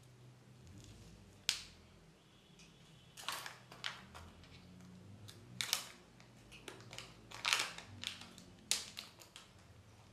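Kinder Joy egg's hard plastic halves and foil seal being handled and opened by hand: a series of sharp, irregular plastic clicks and crinkles, the loudest about three quarters of the way through.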